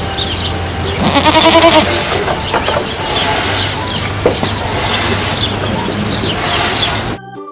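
A goat bleats once, about a second in, over a steady low hum and small high chirps. The sound drops off sharply near the end.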